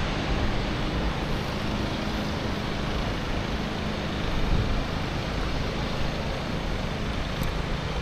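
Steady rushing roar of Thompson Falls, a waterfall plunging into a gorge, heard as an even noise without breaks.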